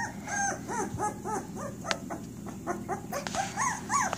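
A three-week-old puppy whimpering in a string of short, high-pitched squeaky cries, each rising and falling, repeated several times a second.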